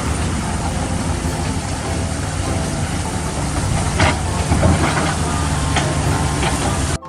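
Electric motors and gearboxes of radio-controlled construction trucks running steadily with a low hum and a hiss, with a few knocks and clatters from about four seconds in.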